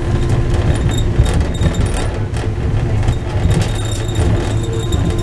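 Wuppertal Schwebebahn suspension railway car running along its overhead rail, heard from inside the cabin: a steady low rumble with a constant hum and scattered light clicks.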